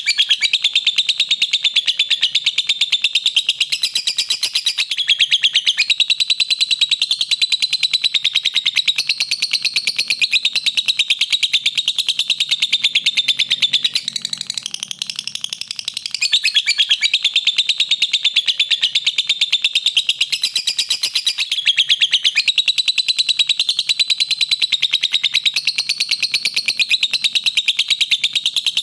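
Lovebird singing a long, rapid chattering song: an unbroken stream of very fast, high chirps, easing briefly about halfway through before picking up again.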